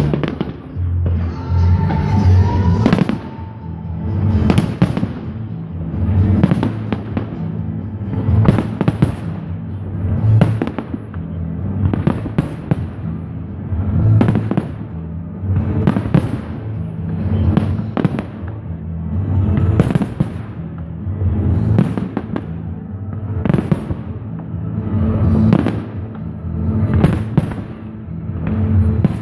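Fireworks display: aerial shells bursting with sharp bangs and crackle, roughly every two seconds, over loud music with a steady bass line.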